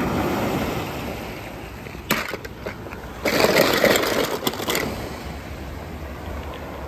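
Surf washing over a rocky shore, with die-cast toy cars clattering against one another in a plastic tub: a few clicks about two seconds in, then a louder rattling clatter lasting about a second and a half.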